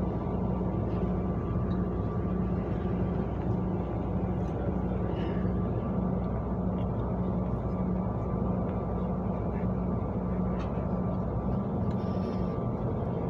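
City bus heard from inside while driving: a steady engine drone with road and body noise, and a faint constant high whine.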